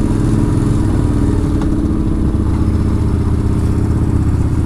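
Yamaha Bolt XV950R's air-cooled V-twin engine running at steady revs while riding, with wind noise.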